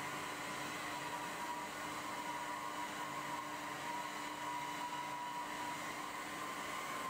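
Steady hum of a large hydraulic forging press in the shop, with a thin constant whine over a hiss.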